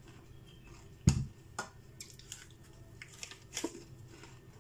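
Small glass bowl set down on a table with one sharp knock about a second in, followed by a few softer clicks and knocks.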